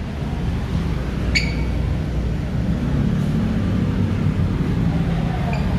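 Street traffic: motor-vehicle engines running with a steady low rumble, and a brief high squeak about a second and a half in.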